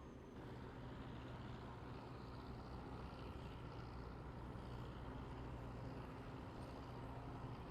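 A heavy vehicle engine running steadily with a low, even hum that gets slightly louder about half a second in.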